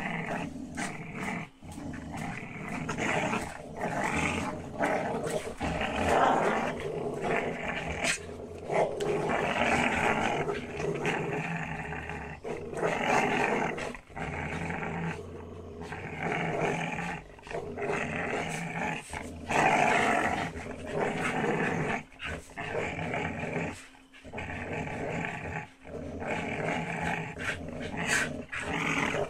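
Dogs growling during a rope tug-of-war, an almost unbroken rough growl that swells and fades, with a few short breaks.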